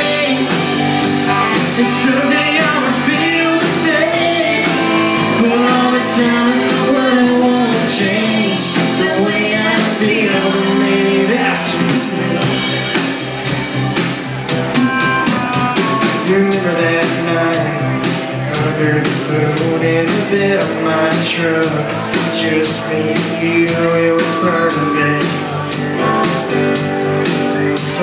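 Live country band playing electric and acoustic guitars, bass guitar and drums, with a woman singing lead for roughly the first ten seconds, then an instrumental passage.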